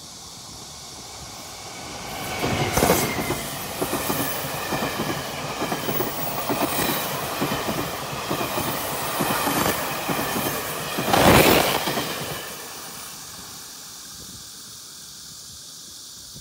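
Taiwan Railway electric locomotive E301 and its blue-and-white Fu-Hsing passenger coaches passing close by. The wheels clatter rapidly over the rail joints, with a faint high squeal. The sound rises about two seconds in, surges near the start of the pass and again around eleven seconds, then fades away as the train recedes.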